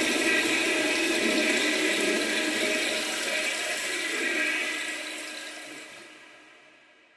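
A loud rushing noise like pouring water, with faint steady tones running through it, that fades out over the last few seconds.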